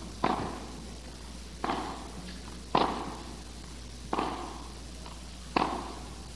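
Tennis baseline rally: the ball struck by racket five times, about every second and a half, each sharp hit followed by a short echo in the indoor hall.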